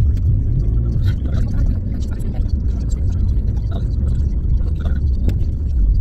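Steady low rumble of a car driving, heard from inside the cabin: road and engine noise.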